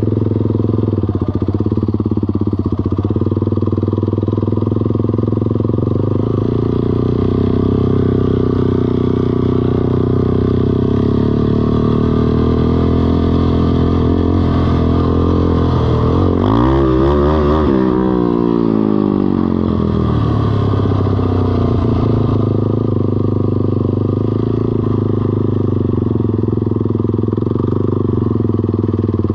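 ATV engine running at a steady speed. A vehicle passes close by about sixteen to nineteen seconds in, its pitch sweeping up and then down.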